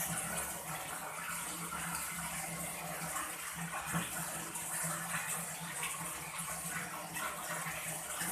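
Water running and splashing steadily while fish are washed during cleaning, with a low steady hum underneath.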